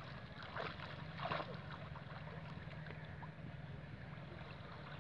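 Faint water sloshing and lapping around people wading chest-deep, with two soft splashes about half a second and just over a second in, over a low steady hum.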